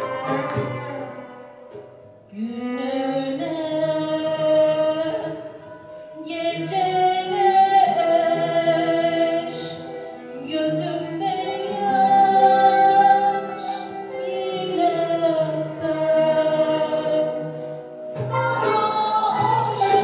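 Mixed choir singing a Turkish classical art song with ud and kanun accompaniment, in sung phrases with a short breath between phrases about two seconds in and again around six seconds.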